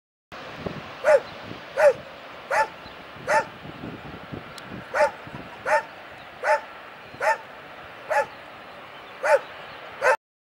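An animal barking repeatedly: eleven short, sharp barks about 0.7 s apart, with a longer pause near the middle, over a steady background hiss. It starts and stops abruptly.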